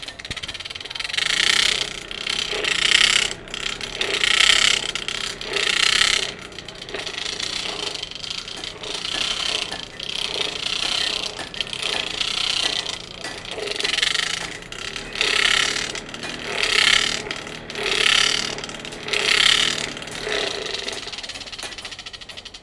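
Forge blower running with a rough mechanical whir that swells and fades about every second and a half. It sounds terrible: the blower is in need of repair.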